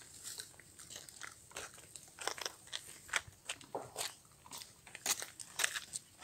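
A run of irregular close crunches and crackles, about two or three a second with no steady rhythm.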